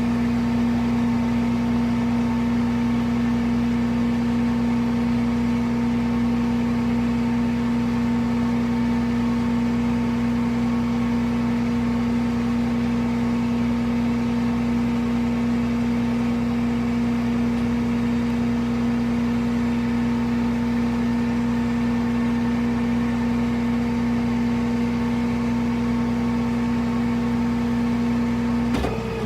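A vehicle's machinery running steadily at one constant speed, giving a strong, unchanging whine over a mechanical hum. It changes and breaks off just before the end.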